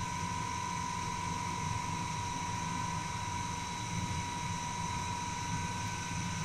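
A steady mechanical hum with a low drone and a constant high whine, unchanging throughout.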